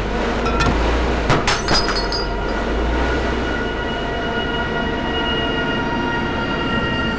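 A hydraulic crane grapple crushing into a car's roof, with sharp cracks of breaking glass and crumpling metal about a second and a half in, then the car hoisted over a steady low mechanical rumble.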